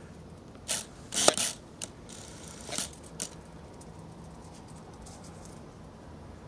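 Mule deer browsing dry plant stalks on a trellis: a quick run of short rustles, snaps and crunches in the first half, loudest about a second in.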